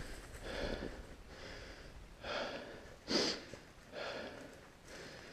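A person breathing heavily close to the microphone: a steady run of soft breaths, about one a second.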